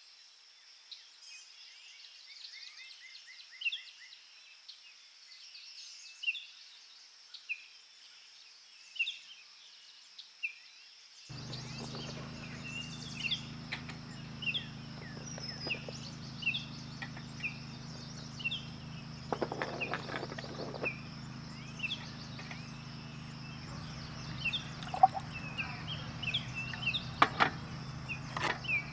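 Birds chirping, short calls repeated every second or so, over a steady high-pitched hiss; about eleven seconds in a steady low hum joins in.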